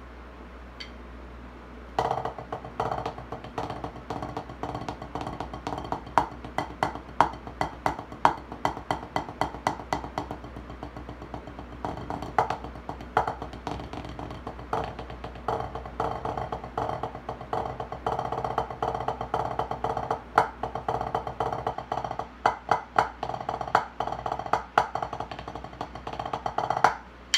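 Wooden drumsticks playing fast strokes on a drum practice pad, a dry tapping with louder accented hits mixed in. The playing starts about two seconds in and stops just before the end.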